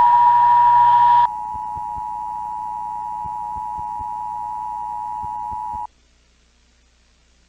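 Emergency Broadcast System attention signal: a steady two-note alarm tone from a TV broadcast. It is loud for just over a second, carries on more quietly, then cuts off suddenly about six seconds in.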